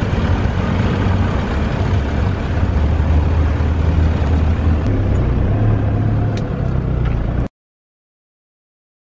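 Outdoor background noise with a steady low rumble, which cuts off suddenly about seven and a half seconds in, leaving silence.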